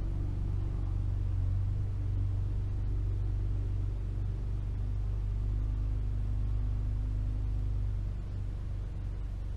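A steady low hum runs on with no distinct clicks or knocks standing out.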